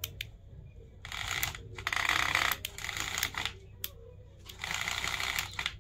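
Small electric motor of a homemade toy tractor whirring in three bursts, with clicking and rattling from its broken gearbox as the stripped gears slip and the wheels fail to drive it up the mound.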